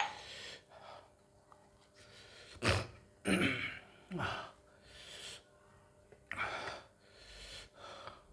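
A man's heavy gasping breaths: a string of about nine noisy puffs of air, a couple with a short voiced grunt, loudest about a third of the way in.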